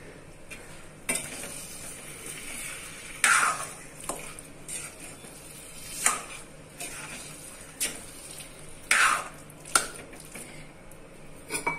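Metal spoon stirring and scraping a wet vegetable mash in an iron kadhai, with a steady low sizzle of the simmering mix beneath. The louder scrapes come irregularly, a second or two apart.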